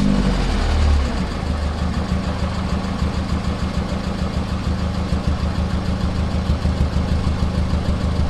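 Peugeot 206 engine that has just started warm, running through its current exhaust, which is pretty quiet. It surges briefly in the first second, then settles into a steady idle with an even exhaust pulse.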